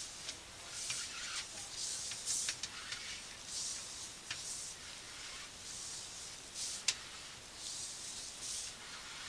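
Sewer inspection camera's push cable being pulled back out of the line, a soft rubbing hiss recurring about once a second with a few sharp clicks.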